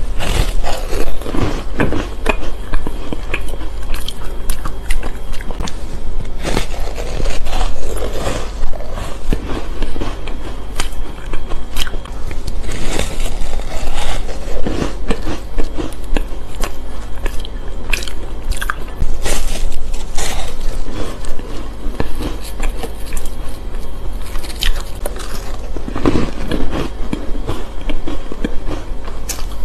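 Bites and chewing of a frozen block of shaved ice coated in matcha powder, close to a clip-on microphone: repeated crisp crunching and crackling in several bouts, the ice breaking and grinding between the teeth.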